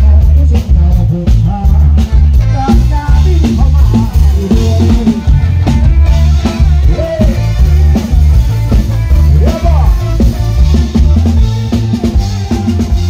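Live Thai ramwong sam-cha dance music from a band on a sound truck: an electric guitar and melody lines over a drum kit and loud, heavy bass with a steady dance beat.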